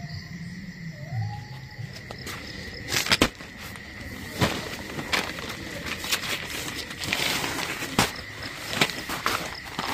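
Nylon tent fabric and a sleeping bag rustling as someone climbs into a dome tent, with a string of sharp knocks and scrapes, the two loudest a little after three seconds in. A faint steady high tone runs underneath.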